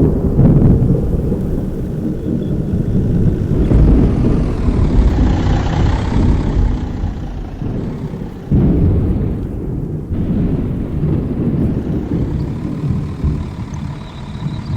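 Heavy armored storm-intercept vehicle (Dominator or TIV) running, a loud, continuous deep rumble of engine and road noise that swells and eases, with a sudden jump in loudness about eight and a half seconds in.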